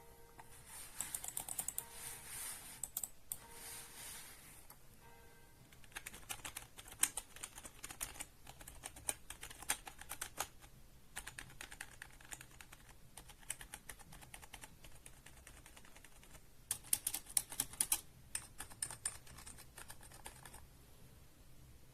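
Typing on a Mars Gaming MCP124 H-Mech gaming keyboard: rapid clattering keystrokes in several bursts, with short pauses about five seconds in and near sixteen seconds. The fastest, loudest run of keystrokes comes a little past the three-quarter mark.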